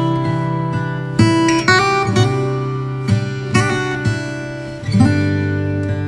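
Opening theme music led by strummed acoustic guitar, with chords that change every second or so.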